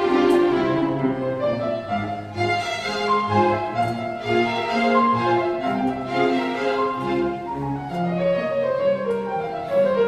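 Background music: bowed strings, violin over cello, playing a slow melody of held notes.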